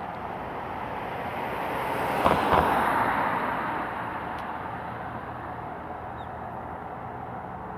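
Street traffic noise, with one car passing close by. It swells to its loudest about two to three seconds in, then fades back into the steady background of traffic.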